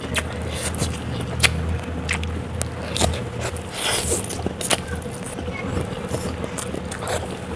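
Close-up eating sounds: chewing and crunching, with scattered sharp clicks and smacks as food is bitten and chewed. A low steady hum runs underneath and eases off about three seconds in.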